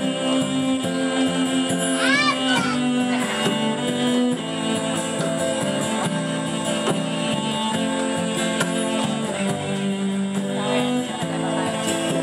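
Live acoustic music with a cello bowed in long sustained notes among other instruments.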